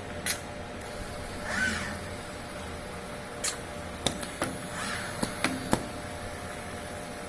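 FANUC industrial robot arm's servo drives whining up and then down in pitch with each move, three times. Several sharp clicks follow in the second half, as the arm and station work through the pick-and-place cycle.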